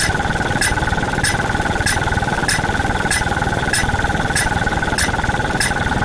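A looping mechanical sound effect: a steady machine-like hum with two held tones and a sharp tick repeating about every 0.6 seconds.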